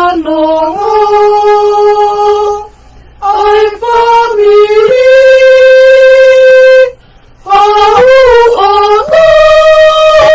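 A family singing a slow hymn together without accompaniment, in long held notes with short breaths between phrases.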